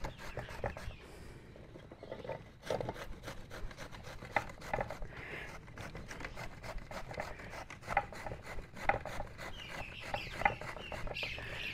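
Chayote being grated by hand on a grater: repeated short rasping strokes, fairly faint.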